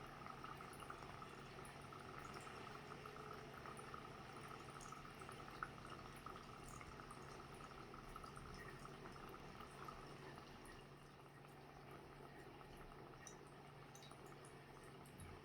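Faint fizzing and bubbling of dry ice in water, fading after about ten seconds, over a low steady hum.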